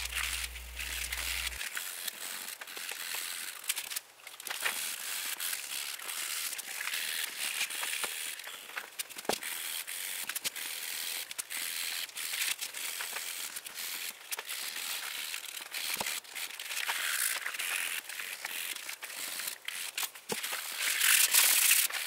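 Hand sanding of a rigid plastic steering wheel filled with PlastiFix, using folded sandpaper and a narrow sandpaper strip: an irregular dry scratching and rasping with scattered small clicks, loudest near the end.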